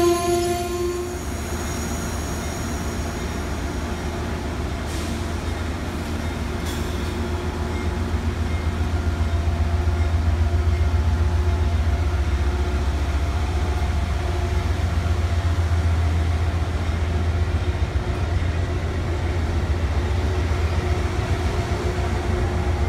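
Amtrak Northeast Regional passenger train passing: its horn chord cuts off about a second in, then the steady rumble of the coaches rolling by, growing louder about eight seconds in.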